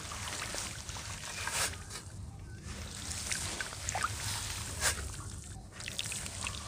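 Red dirt crackling and crumbling in scattered gritty bits, with two sharper cracks, one about a second and a half in and one near five seconds, over a low steady rumble.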